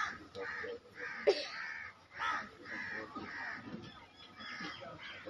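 Crows cawing in a steady string of short calls, about two or three a second, with one sharp knock a little over a second in.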